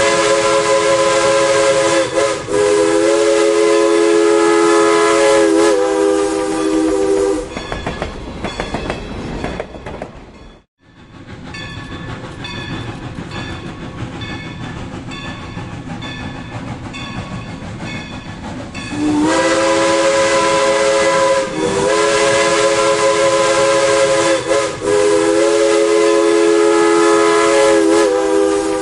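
Steam locomotive whistle sounding a chord of several notes in long blasts, with short breaks between them. It stops for a stretch in the middle, where the train is heard passing with a steady rhythmic clatter of wheels over the rail joints. The whistle then starts again with more long blasts.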